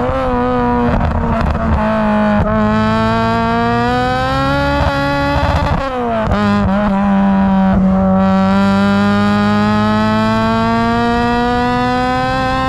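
Honda Civic Type R EP3's 2.0-litre four-cylinder i-VTEC engine through a Tegiwa 4-2-1 manifold and 70 mm silenced exhaust, pulling hard under acceleration. The exhaust note climbs in pitch, drops sharply at a gear change about halfway through, then climbs again.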